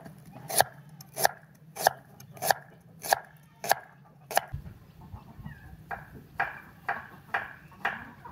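Kitchen knife slicing through a red onion onto a wooden cutting board: sharp, evenly spaced chops, about one every 0.6 seconds. About halfway through, the chopping stops and a series of softer, duller sounds follows, about two a second.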